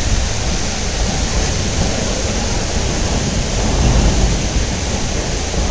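Steady rushing, rumbling noise of the narrow-gauge train running along the canyon, heard from aboard a car open to the wind, with no clear single event.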